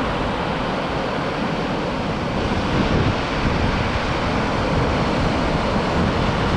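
Steady rush of wind and surf on an ocean beach, with wind buffeting the microphone in uneven low rumbles.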